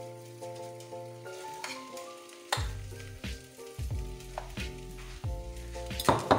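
Background music: a keyboard melody of held notes, joined about two and a half seconds in by a steady beat with kick drum and bass.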